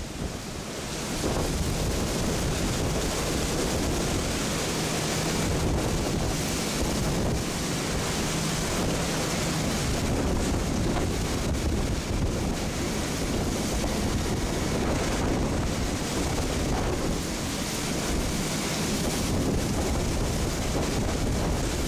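Hurricane-force wind blowing hard across the microphone with wind-driven rain, a steady, deep rushing; it eases briefly and comes back strong about a second in.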